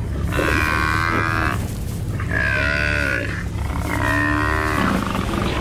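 African buffalo bull bellowing in distress as lions bring it down: three drawn-out cries of about a second each, a fourth beginning near the end, over a steady low rumble.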